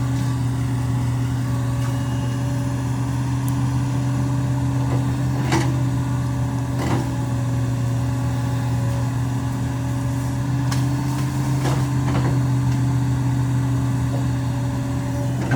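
Hitachi excavator's diesel engine running steadily under working load, with a few sharp cracks or knocks scattered through it.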